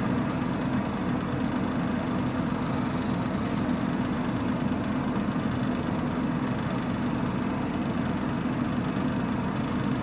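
Vehicle engine idling steadily, with a constant low hum and no change in speed.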